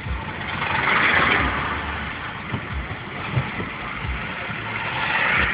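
Vehicles passing on a street: engine and tyre noise swells as a small fire engine drives past, without a siren, about a second in, and swells again near the end as an old car approaches. Occasional low thumps come through under it.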